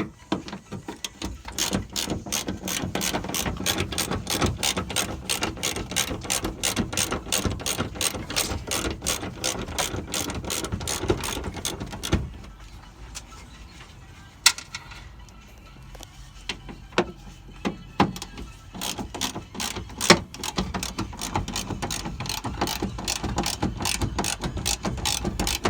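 Hand socket ratchet clicking rapidly in long runs as bolts are turned out of the car door. It stops for a few seconds in the middle, leaving a few single clicks, then starts again.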